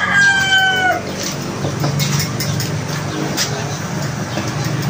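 A rooster crows, its long call falling slightly in pitch and ending about a second in. A steady low hum carries on underneath.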